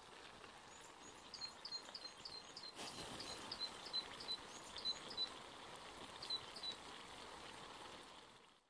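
A bird calling in quick strings of short, high chirps that sweep down in pitch, about four a second, over a faint steady outdoor hiss. The sound fades out near the end.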